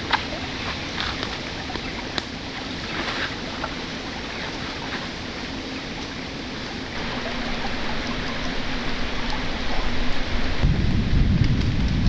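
Steady rain falling, with scattered sharp drop ticks in the first few seconds. It grows louder about seven seconds in, and a deep rumble comes in near the end.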